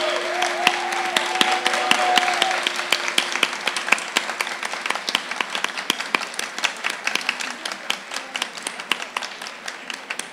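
Audience applauding with dense hand claps that thin out toward the end. A steady ringing tone from a crystal singing bowl carries over the first seconds and fades out about three seconds in.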